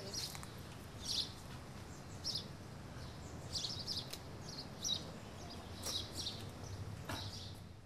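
Small birds chirping in short, high calls that come about once a second, over a low steady background rumble.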